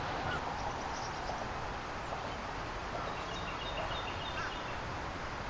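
Steady outdoor background hiss by the water, with faint, short high-pitched chirps, a quick run of them about three to four seconds in.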